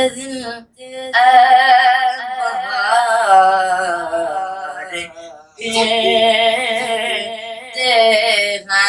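A boy's voice singing an Urdu naat in long, drawn-out, wavering notes, with short breaks for breath about a second in and about halfway through.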